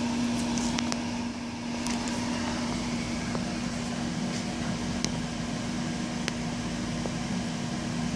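Steady hum and fan noise from a powered-on Husky Altanium Delta 2 hot-runner temperature controller on its Xf12 mainframe, holding one constant pitch, with a few faint clicks scattered through.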